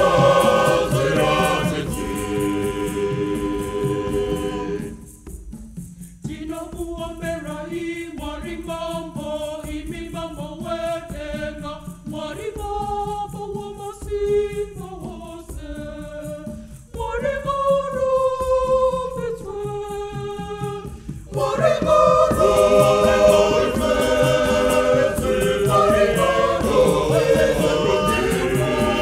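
Choir singing a Shona Catholic hymn. About five seconds in, the sound thins to a quieter passage with fewer voices, and the full choir comes back in about three-quarters of the way through.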